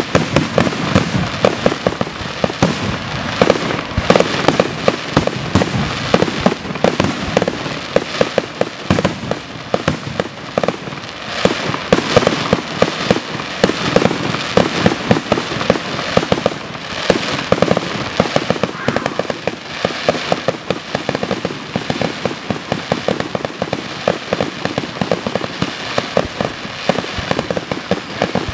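Fireworks grand finale: aerial shells launching and bursting in a rapid, continuous barrage of overlapping bangs.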